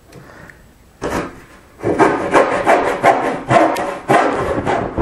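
Small dovetail saw cutting a notch in a wooden board by hand. After a short first stroke about a second in, quick, even back-and-forth strokes start about two seconds in, roughly three a second.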